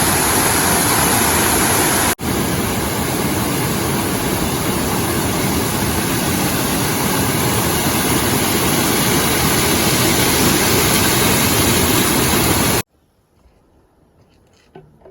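Loud, steady rushing noise that drops out for an instant about two seconds in and stops abruptly near the end.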